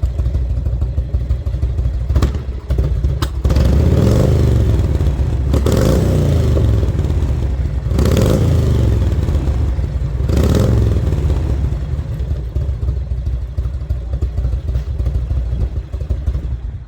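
1995 Harley-Davidson Road King's Evolution V-twin idling through Vance & Hines exhaust with turn-down tips. The throttle is cracked about five times in the first ten seconds, each blip rising and falling back, then the engine settles into a steady idle.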